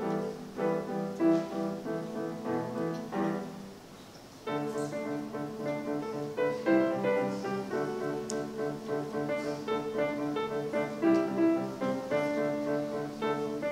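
Solo piano played on a Kawai grand piano: a steady run of notes, a brief pause about four seconds in where the last chord dies away, then the playing starts again.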